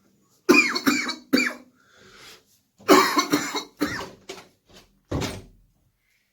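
A man coughing in fits from a COVID-19 infection: a quick run of three coughs about half a second in, then a longer bout of coughs a second later, with one last cough near the end.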